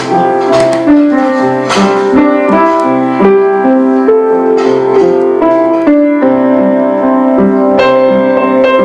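Piano music: a melody of held notes over sustained chords.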